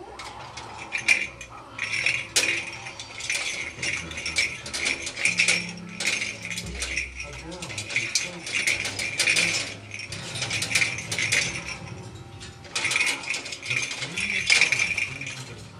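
A small parrot at play, rattling and clicking a hard toy in rapid runs of clicks and clinks that come in bouts with short pauses.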